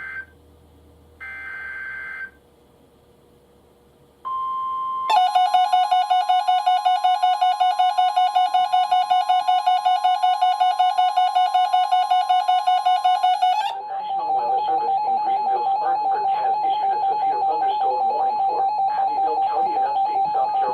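NOAA Weather Radio alert signals: a short screech of SAME digital header data, then the steady 1050 Hz warning alarm tone, overlaid for about eight seconds by a louder electronic alarm that pulses many times a second. About two-thirds of the way in this gives way to a different steady electronic alert tone with a buzzy, crackly undertone.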